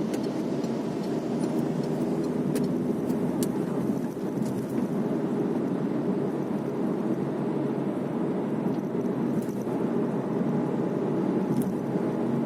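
Road noise inside a moving car's cabin: a steady rumble of engine and tyres on the road, with occasional light ticks.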